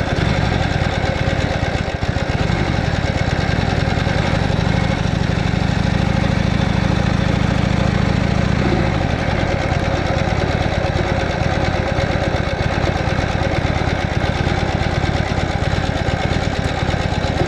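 The 1985 Harley-Davidson Sportster 1000 Ironhead's V-twin engine running steadily. It grows louder from about four to nine seconds in, then settles back.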